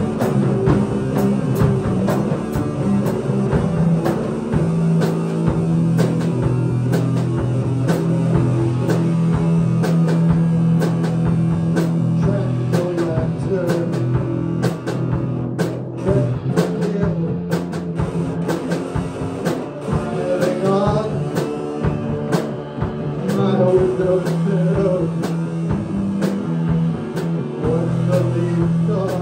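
Live rock band playing: semi-hollow electric guitar over a drum kit and bass guitar, with a steady beat of drum hits.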